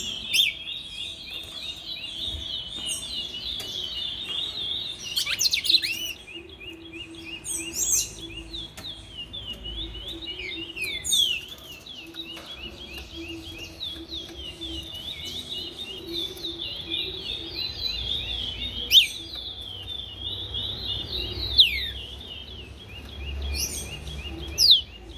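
Several caged songbirds singing at once: a fast, unbroken twittering chatter, with sharper whistled notes cutting in every few seconds.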